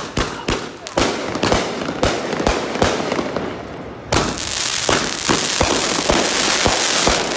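Fireworks going off: a string of sharp bangs, about two or three a second. About four seconds in, a loud hissing spray of sparks starts up, with the bangs continuing through it.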